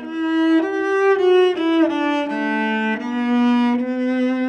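Solo cello bowed, playing a slow melody of held notes in its middle range, the pitch moving every half second to a second, with a short slide down between notes about a second and a half in.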